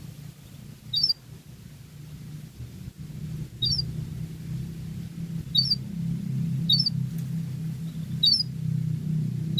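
Domestic canary giving short, sharp high chirps, about six of them at uneven gaps of one to two and a half seconds, over a steady low hum.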